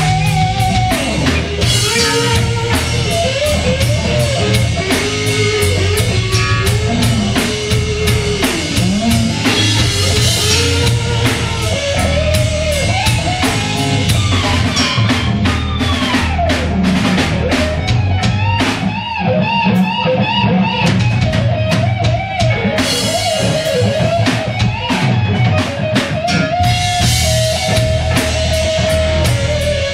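Live rock band playing an instrumental passage: a lead electric guitar line with bent and wavering notes over a steady drum kit beat and bass.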